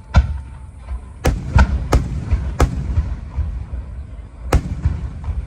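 Fireworks shells bursting: about six sharp bangs at uneven intervals, three of them close together a little over a second in, with a low rumble between them.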